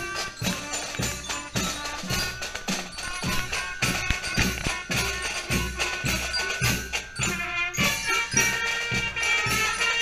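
Scout marching band playing a march as it walks, with drums and cymbals keeping a steady beat under saxophones and other wind instruments holding the tune.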